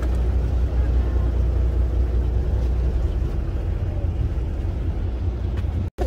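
Fishing boat's engine running steadily, a deep low hum heard on deck; the sound drops out for an instant near the end.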